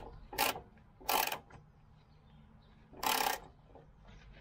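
Three short ratchet-wrench strokes, snugging up the nut on the bottom of a new engine mount.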